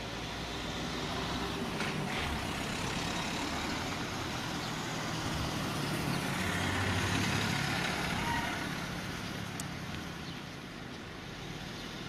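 A motor vehicle driving past, its engine and tyre noise swelling to a peak about seven seconds in and then fading away.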